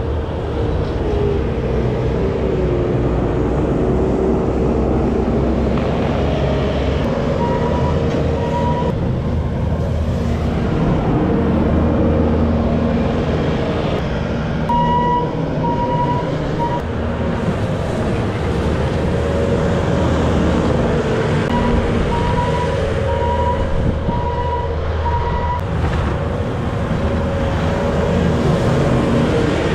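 Bobcat skid-steer loader's diesel engine running under load while it pushes snow, with a backup alarm beeping in several runs as it reverses.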